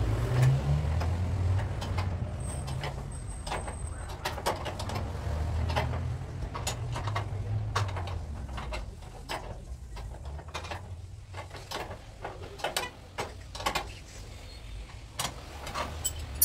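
Repeated sharp metal clicks and taps of hand tools working at a car's front brake hub. Under them runs a low rumble that weakens about halfway through.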